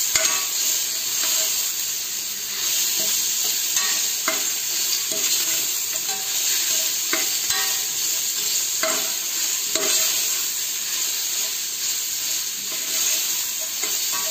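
Onions, green chillies and ginger-garlic paste sizzling in hot oil in an open pressure cooker, stirred with a spoon that scrapes the bottom of the pot in repeated short strokes over a steady hiss.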